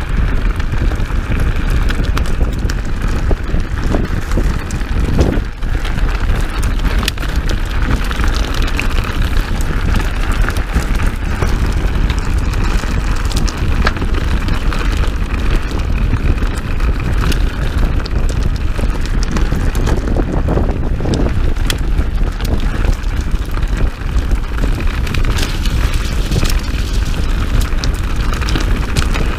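Wind buffeting the camera microphone over the rolling noise of mountain bike tyres on a dirt trail during a fast descent. Scattered clicks and rattles come from the bike and gravel.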